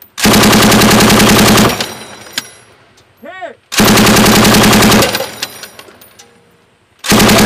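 Turret-mounted belt-fed machine gun firing three bursts of rapid automatic fire, each about a second and a half long, with the reports echoing away in the gaps between them. The third burst starts near the end.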